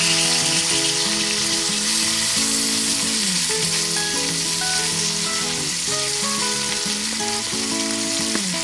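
Beef steak frying in butter in a cast-iron skillet: a steady, dense sizzle.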